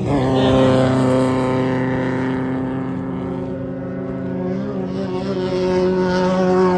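A side-by-side UTV engine running at a steady speed. Its pitch steps up slightly about two-thirds of the way through.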